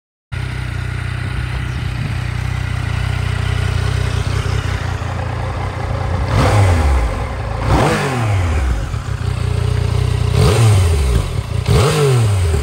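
2017 Yamaha MT-09's 847 cc three-cylinder engine idling, then blipped four times in two pairs, about halfway through and near the end, each rev rising quickly and falling back to idle.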